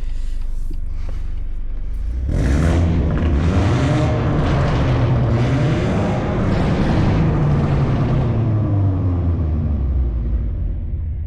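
BMW 220i's turbocharged B48 2.0-litre four-cylinder, on a stage 2 tune with free-flow downpipe and M240i exhaust, accelerating hard. It cruises with a low rumble, then about two seconds in the sound jumps louder and the revs climb and drop as the car pulls through the gears, before it eases off near the end.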